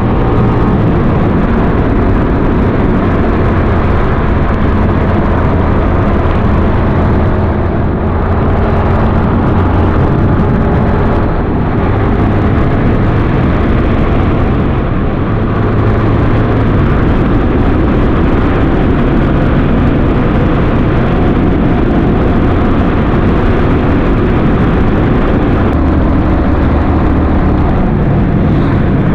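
Kasinski Mirage 250 V-twin motorcycle engine running at road speed, its note rising and falling a few times, over a steady rush of wind and road noise.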